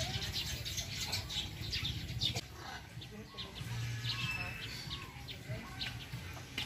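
Many small birds chirping and twittering in quick, high calls, with some lower sliding call notes mixed in. A low hum runs underneath.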